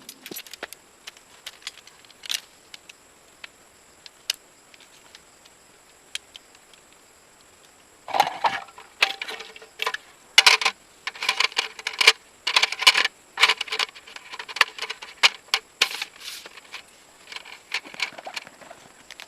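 Small hard, metallic-sounding objects being handled: a few scattered clicks at first, then from about eight seconds in a busy run of clinks and rattles. A faint steady high whine sits underneath.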